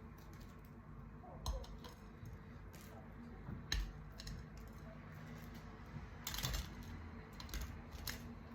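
Scattered light clicks and taps of a kitchen utensil against a plate and pan as fried cutlets are moved onto the plate, with a short cluster of louder taps about two-thirds of the way through.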